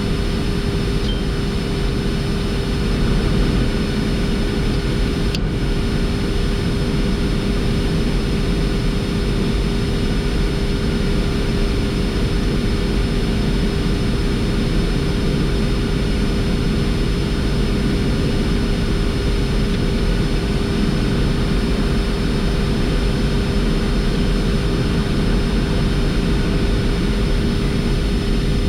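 Boeing 747-400 flight deck on final approach: steady rushing airflow and engine noise, with a constant hum running through it.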